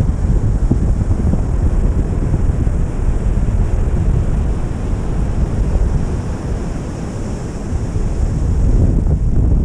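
Strong wind buffeting the microphone over surf on the beach: a loud, steady, low rumble that eases slightly about seven seconds in.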